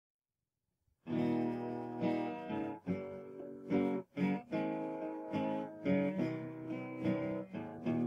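Intro music of strummed guitar chords, starting about a second in.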